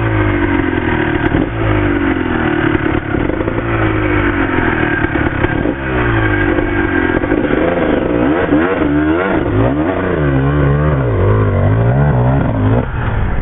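Off-road dirt bike engine revving hard under load through a steep rocky rut, its pitch surging up and falling back again and again, with quicker, choppier blips of the throttle in the second half.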